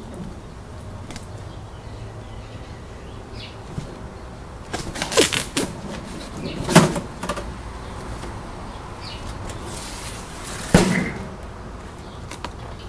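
Cardboard shipping box being opened and handled: short scrapes and rustles, with a few sharp knocks, the loudest near the end.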